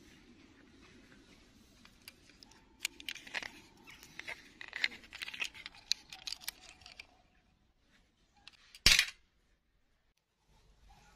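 Dry twigs and bark crackling and rustling as a hand pulls a small plastic doll off a dead branch, a run of small snaps and clicks. Near the end, a single sharp clink as the doll drops into a ceramic bowl.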